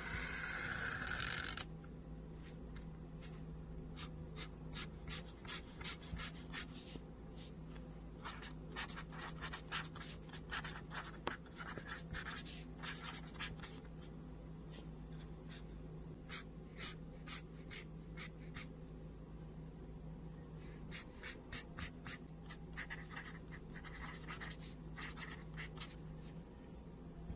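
Felt-tip marker drawing on paper: one longer stroke at the start, then many short, quick strokes in clusters as fur lines and lettering are drawn, over a faint steady hum.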